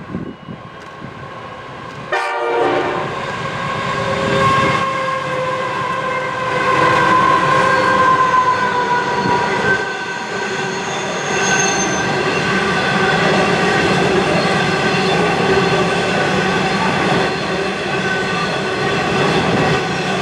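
A train passing, loud from about two seconds in, with a steady hum of several stacked tones from the train over rail and running noise.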